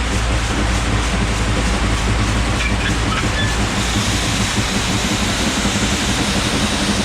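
Heavy farm machinery running steadily: a constant low engine hum under a loud, even rattle and rumble, as from a tractor or truck hauling grain wagons.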